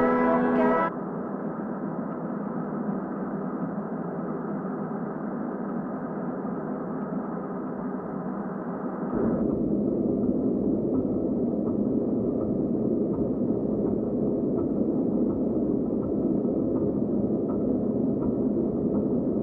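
A ringing pitched tone cuts off under a second in, giving way to a steady hissing noise drone. About nine seconds in, the drone drops to a deeper, louder rumble that runs on unchanged.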